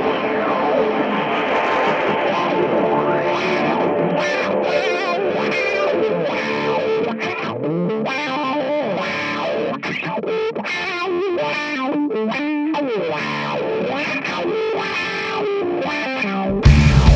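Distorted electric guitar through effects, with many sliding, swooping notes over a dense layered texture. Just before the end a louder, bass-heavy part comes in.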